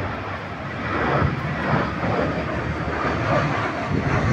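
Jet engines of an Airbus A320-family airliner passing on final approach with landing gear down: a steady rushing engine noise with a faint whine, growing a little louder after about a second.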